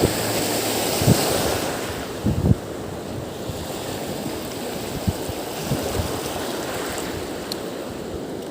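Wind buffeting the microphone over steady water and surf noise at a river estuary, with a few short low gusts thumping on the mic.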